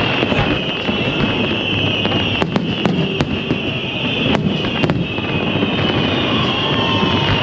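Fireworks display going off in a dense barrage: continuous booming and crackling, with several sharp cracks between about two and five seconds in.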